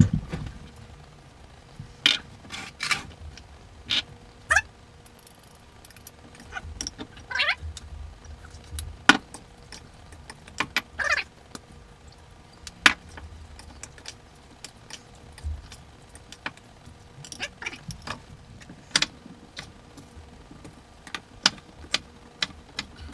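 Knife chopping on a cutting board: irregular sharp knocks, spaced unevenly, with a few short rising squeaks in between.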